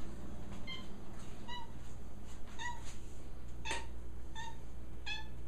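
Domestic cat meowing in a run of about six short meows, one roughly every second, begging for food because he is hungry.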